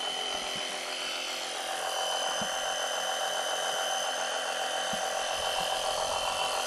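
A small motor running steadily with a high, even whine, with a few faint knocks from a hydraulic floor jack being pumped.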